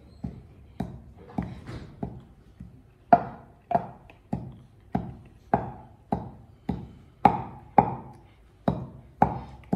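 Wooden pestle pounding seeds in a wooden mortar: a steady run of sharp wooden knocks, a little under two a second, louder from about three seconds in.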